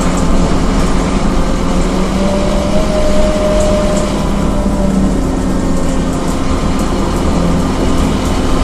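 Cabin sound of a Scania K230UB city bus under way: the steady drone of its rear-mounted nine-litre five-cylinder diesel with road noise and interior rattles. A higher, steady whine joins about two seconds in and fades out about three seconds later.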